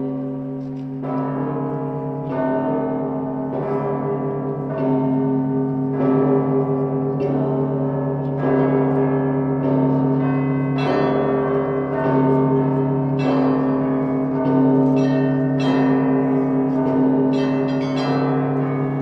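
Russian Orthodox church bells of the Danilov Monastery belfry ringing: a deep bell's sustained hum under a steady run of bell strokes about every second, with higher, brighter bells joining in from about halfway through.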